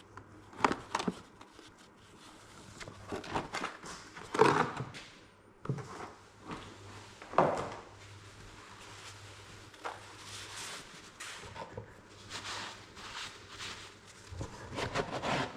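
Tools and parts being handled during hydraulic tank service: irregular knocks, clicks and short scrapes, over a faint steady low hum.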